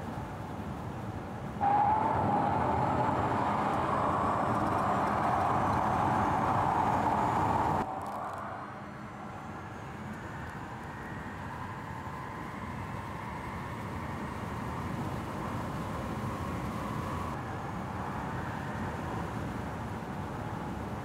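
Mercedes-Benz EQC 400 4Matic electric SUV driving at speed: tyre and wind noise with a faint whine from the electric drivetrain. It gets suddenly louder about two seconds in and drops back abruptly about eight seconds in, then runs on steadily.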